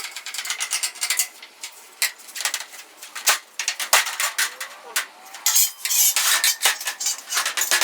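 Irregular metallic clicks and clinks of tools and garage-door hardware being handled during disassembly, with a denser run of rapid rattling clicks about six seconds in.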